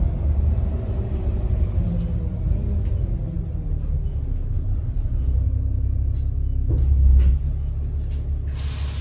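Double-decker bus running, heard from the upper deck: a steady low engine and road rumble, with the engine note falling over the first few seconds. About seven seconds in there is a louder rattle, and near the end a steady hiss starts.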